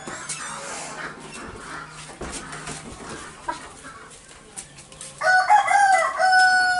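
A rooster crows once near the end, in a long, loud call. Before it, only a few faint knocks.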